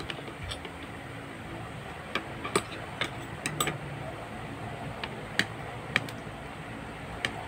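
A metal fork clinking and scraping against a plate while twirling carbonara: a scatter of sharp, irregular clinks, most of them between about two and four seconds in, with a few more later.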